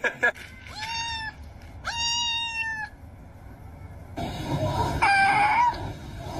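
A domestic cat meowing: two clear, drawn-out meows, then a longer, rougher yowl about four to six seconds in. The cat is unhappy and complaining.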